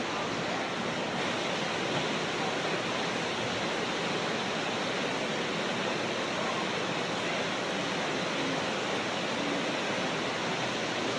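Steady rushing travel noise of a moving vehicle heard from inside its cabin, even and unchanging with no distinct knocks or tones.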